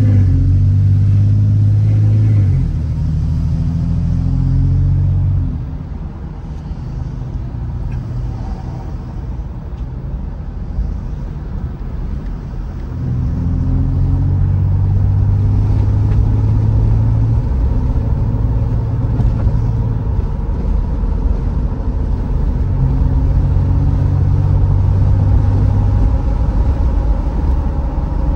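Car driving, heard from inside the cabin: a steady low engine and road rumble that drops off about five seconds in and picks up again about halfway through as the car speeds up.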